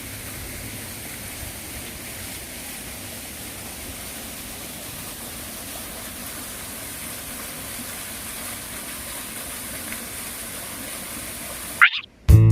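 Steady rushing outdoor ambience with no distinct events. Near the end comes a brief high sweeping tone, and then guitar music starts.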